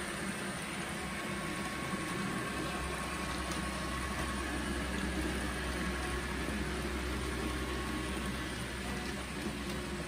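H0-scale model freight train running past on its track: a steady rolling hiss and rumble of the wheels and cars, with a low hum joining about two and a half seconds in.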